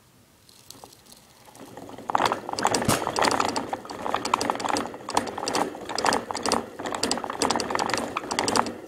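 Hamster running flat out on a blue plastic exercise wheel, the spinning wheel rattling and clicking rapidly. It starts faintly, gets loud about two seconds in, swells and eases in quick waves, and stops shortly before the end.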